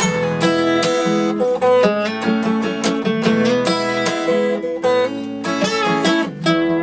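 Acoustic guitar strumming chords in an instrumental break between sung lines of a country song.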